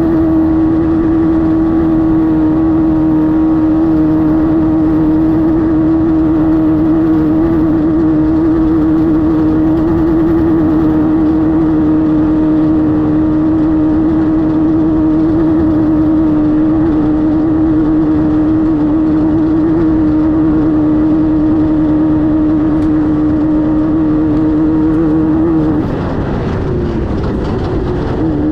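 Class 5-1600 race car's air-cooled VW 1600 engine running at steady revs. About 26 seconds in the revs drop and waver, then climb again near the end.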